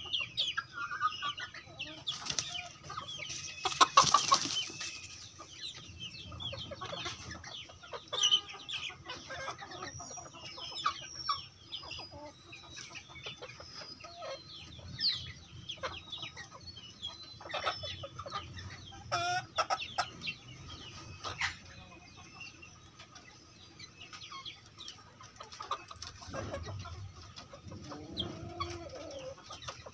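A flock of young kampung chickens (Indonesian native chickens) clucking, with many short high calls scattered throughout. There is one sudden loud noise about four seconds in.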